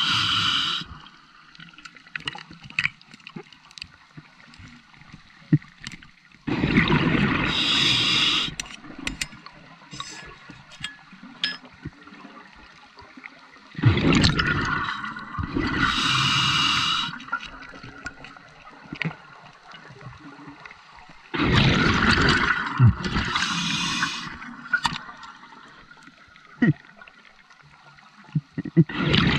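Scuba diver breathing through a regulator underwater: exhaled bubbles rush and gurgle past the camera in bursts of two to three seconds, about every seven to eight seconds. Faint clicks and crackles fill the quieter stretches between breaths.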